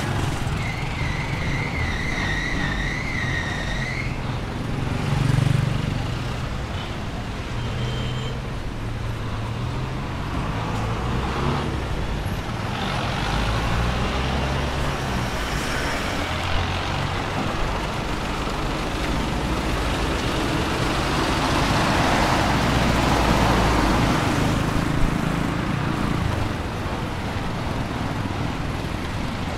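City street traffic: vehicle engines running steadily as cars and other road vehicles pass, with louder passes about thirteen seconds in and again between about 21 and 25 seconds. Near the start a wavering high-pitched tone sounds for about three seconds.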